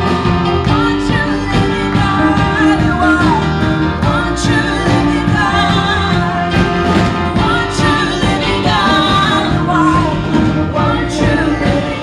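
A praise and worship band playing with singing: a steady drum beat under held chords and bass, and voices singing a wavering melody over them.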